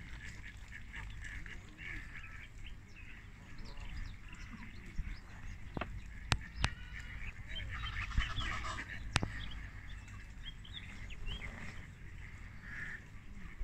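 Ducks and geese calling at the water's edge: scattered quacks and honks from mallards and Canada geese, over a steady low rumble. A few sharp clicks come in the middle.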